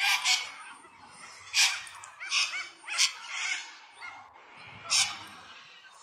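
Little corellas giving harsh screeching squawks while fighting, about seven loud calls in irregular bursts, a couple of them with a short wavering note.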